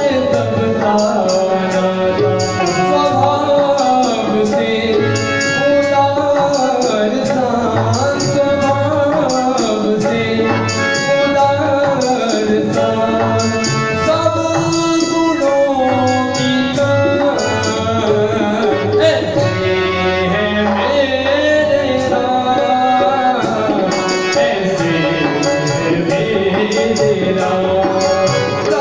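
A Hindi devotional bhajan: a man sings into a microphone over a steady percussion rhythm.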